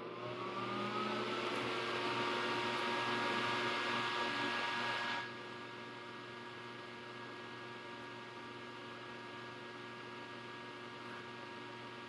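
Soldering fume-extraction fan switched on, its whine rising in pitch as it spins up, then running with a steady whir. About five seconds in, the airy hiss drops away suddenly, leaving a quieter steady hum.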